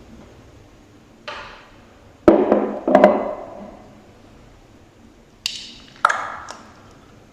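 Coloured slime being pressed and pulled by hand, making about five separate sticky squishes and pops, each starting with a sharp click; the loudest come between two and three seconds in.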